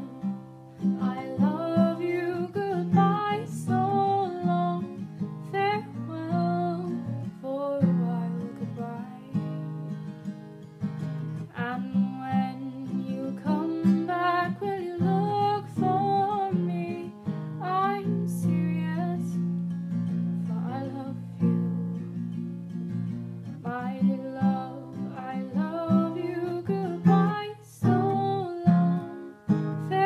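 A woman singing to her own acoustic guitar, capoed and strummed steadily under the sung melody.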